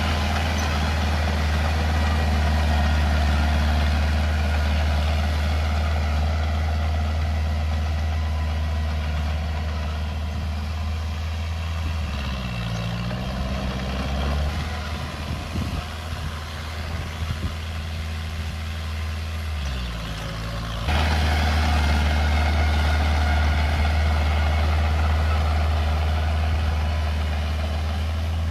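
Komatsu mini bulldozer's diesel engine running steadily while it works. Its pitch sags twice in the middle, as it takes load, and near the end it jumps back abruptly to a steady note.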